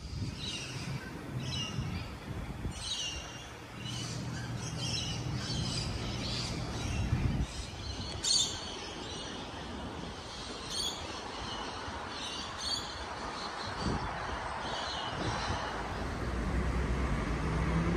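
Street ambience: small birds chirping in short, repeated calls over a low engine hum and traffic rumble. The hum cuts out about seven seconds in, and the traffic rumble grows near the end.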